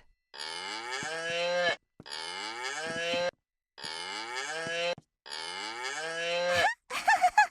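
Children's animal-sound toy playing a cow's moo four times in a row, the same recording each time, one for each key press. Near the end comes a burst of short, louder, higher-pitched sounds.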